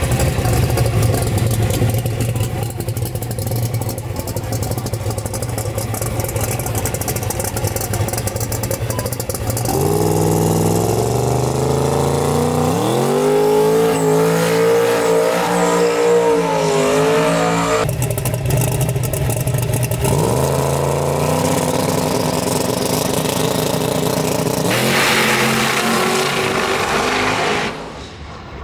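1988 Chevy S10 drag truck's race engine idling with a low, rough rumble, then revving up and held at high revs through a burnout with the rear tyres spinning. After a sudden cut it revs up again in steps before dropping away near the end.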